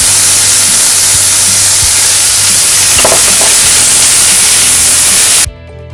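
Chopped onions sizzling in hot oil in a stainless steel pan as they are stirred with a wooden spatula. The sizzling cuts off suddenly near the end, leaving quieter guitar background music.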